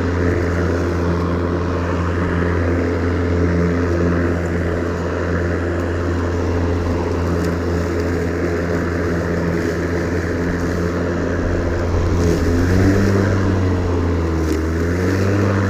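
Ryobi 40-volt cordless 20-inch lawn mower running and cutting grass, a steady hum from its battery-powered motor and blade. It is still at full speed after about 30 minutes on its lithium battery. Near the end the pitch dips and wavers a few times as the load changes.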